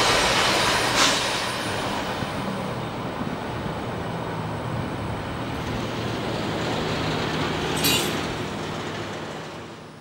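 The tail of a CSX freight train of refrigerated boxcars passing at speed and receding: the rush of steel wheels on rail fades steadily away. Two sharp clicks come through, one about a second in and one near eight seconds.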